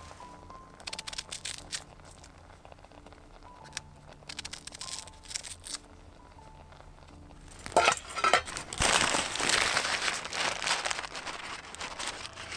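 A plastic bag crinkling and rustling loudly, starting about eight seconds in, as food is shaken out of it into a cooking pot. Before that, a few light clicks and clinks of a pot lid being handled.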